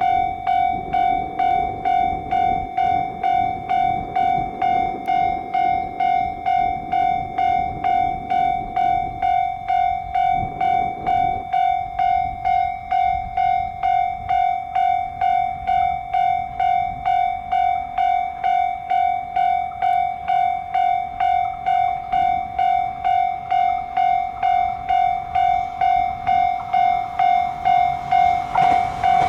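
Japanese level crossing warning bell ringing steadily, a pitched electronic clang repeating about twice a second to signal an approaching train. Near the end the noise of the oncoming train starts to build under it.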